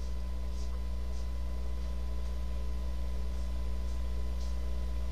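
Steady low electrical hum with a few faint steady higher tones, unchanging throughout.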